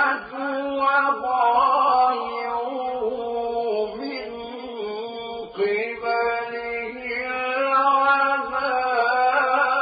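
A male voice reciting the Quran in the melodic mujawwad style, drawing out long, ornamented notes with only brief breaks.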